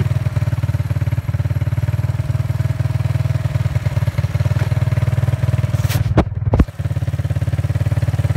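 ATV engine running at a steady, pulsing pace throughout. A couple of sharp knocks sound about six seconds in, with a brief dip in the engine sound.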